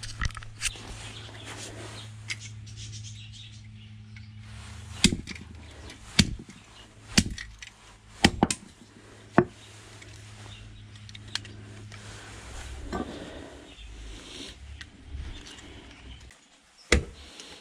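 A long-handled hammer bashing a plastic hair dryer casing on a concrete slab to break it open for its motor. There are a few light knocks first, then about six hard blows roughly a second apart in the middle, and one more knock near the end.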